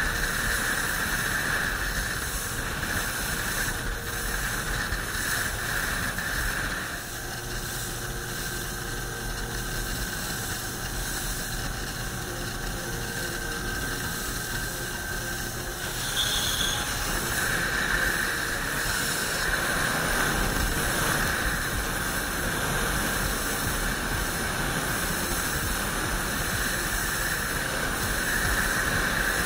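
Small motorboat under way: the outboard motor running with a steady hiss of wind and water spray. It drops somewhat quieter about seven seconds in and comes back up about sixteen seconds in.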